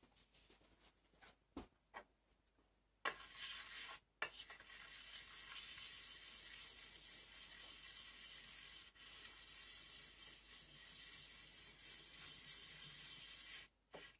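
Aluminium-oxide sharpening stone rubbed on a glass plate with silicon carbide abrasive slurry, lapping the stone flat: a steady gritty rubbing that starts about three seconds in, breaks off briefly a second later, then runs on and stops just before the end. A few faint clicks come before it.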